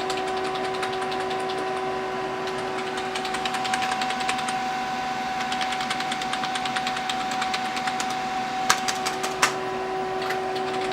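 Keys of a Masione VMJ-02 gaming keyboard pressed in rapid succession, a dense run of quick clicks, with two louder clacks near the end: every key is being pressed to test the keyboard after liquid-damage repair.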